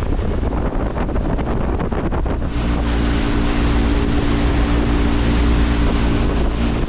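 Motorboat running under way, its engine hum mixed with wind buffeting the microphone and the rush of water. About two and a half seconds in, the wind and water rush grows louder and a steady engine hum comes through.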